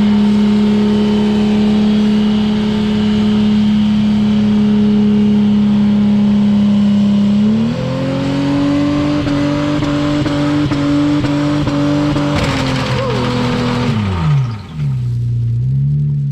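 Holden VX Commodore's Ecotec V6 held at high revs in a burnout, climbing to a higher steady pitch about halfway through. About three-quarters in a sudden loud rush of hiss rises over it for a second or so, then the revs drop right off and the engine gives one short blip near the end.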